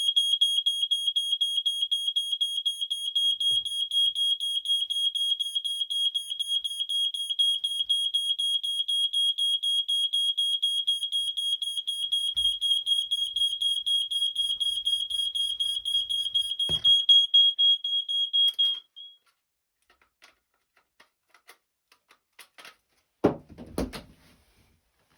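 BRK 2001 smoke alarm going off under a smoke test: a loud, shrill, continuous tone with a fast pulsing flutter, which cuts off suddenly after about nineteen seconds. A few knocks and handling noises follow.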